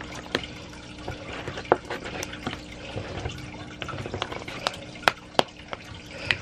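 The plastic cap of a Tetra freeze-dried bloodworm container clicks and creaks as it is twisted, pressed and pried at by hand, giving a scatter of irregular sharp clicks. The cap is awkward to open.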